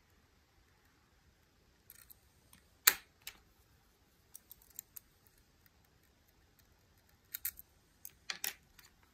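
Scattered sharp clicks and light metallic clinks of lock-picking tools being handled and swapped around a lock in a vise. The loudest is a single click about three seconds in, with clusters of clicks near the middle and end.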